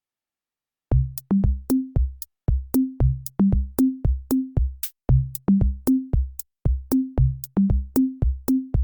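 Electronic music: a drum-machine beat of short, low pitched hits that step up in pitch in a repeating pattern, each with a click on top. It starts about a second in.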